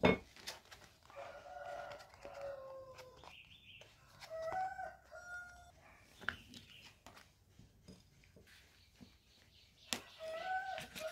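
Drawn-out animal calls in the background, three of them, each made of held notes that step in pitch. Along with them come clicks and rustles of card being folded against a metal ruler, with a sharp knock right at the start.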